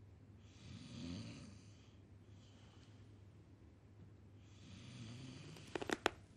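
Two slow, soft breaths from a person, one starting about half a second in and another about four and a half seconds in. Near the end come a few sharp plastic clicks as a pair of 3D glasses is handled.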